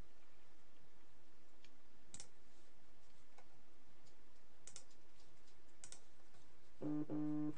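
A few sharp clicks of computer clicking over a faint steady hiss. Near the end a short low hum with evenly spaced overtones sounds, broken by a brief gap.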